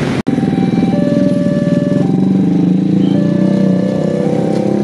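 Motorcycle and car engines running in traffic, a steady, dense rumble, over a simple tune of single held tones that changes pitch about once a second. The sound drops out for an instant just after the start.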